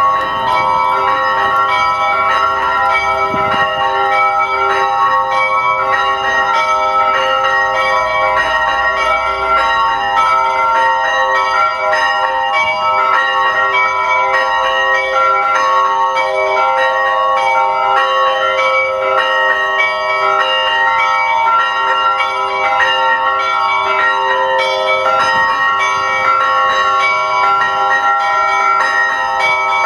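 Orthodox church bells rung by hand in a continuous zvon. Small bells are struck in a quick repeating pattern over the steady lingering ring of the larger bells.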